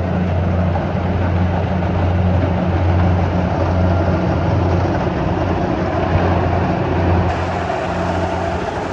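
Kubota DC70 rice combine harvester's diesel engine running steadily under load, a continuous low hum with a noisy mechanical clatter over it.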